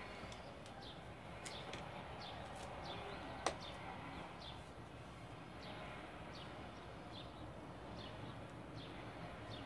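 Small birds chirping: short, high, downward-sliding chirps repeated irregularly over steady low background noise. One sharp click about three and a half seconds in.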